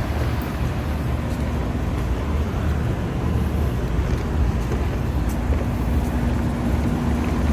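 Steady low rumble of rooftop HVAC equipment running, with a steady hum that comes in about a second in and grows stronger near the end.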